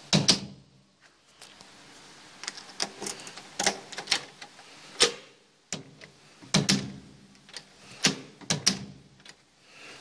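Lockwood mortice lock worked with a key and lever handle: a string of sharp metallic clicks and clacks as the key turns in the cylinder and the bolt and latch throw. The loudest clacks come right at the start and about halfway through.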